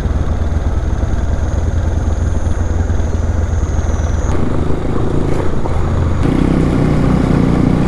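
Motorcycle engine running while being ridden, a steady low rumble whose note shifts about four seconds in and again about six seconds in.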